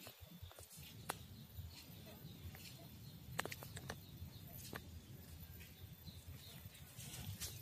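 Faint outdoor background: a low rumble with a few sharp clicks scattered through it, and faint high chirps.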